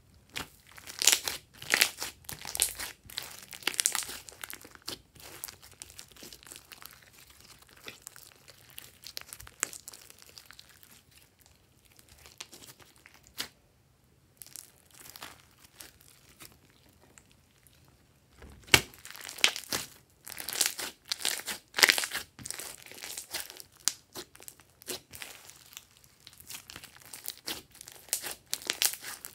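Hands squishing and stretching glossy slime mixed with small foam beads: a sticky, wet crackling of many small pops and clicks in irregular bursts. It goes quieter for a few seconds midway, then louder squeezing resumes.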